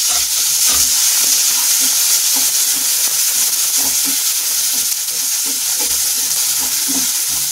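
Chopped onions sizzling in hot oil in a non-stick kadai, stirred with a wooden spatula that scrapes and knocks against the pan every second or so over a steady hiss.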